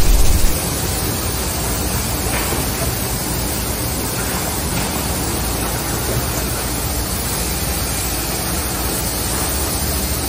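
A loud logo sound effect cuts off about half a second in. Then comes the steady, even noise of a woodworking line running: a Woodmaster four-sided sanding machine with its feed rollers and dust-extraction ducting.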